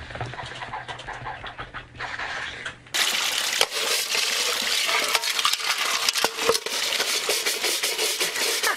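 A few faint taps at first. About three seconds in, loud sloshing and splashing of water with rapid clattering of a metal basin begins, as capuchin monkeys scrub with their hands in a basin of water.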